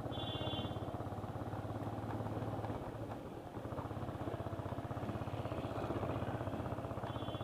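Motorcycle engine running steadily at low revs while riding slowly, easing off briefly about three seconds in before picking up again.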